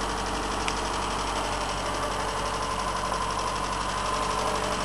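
Opel 2.4-litre C24NE four-cylinder engine running on a Varajet II carburettor instead of fuel injection, idling steadily.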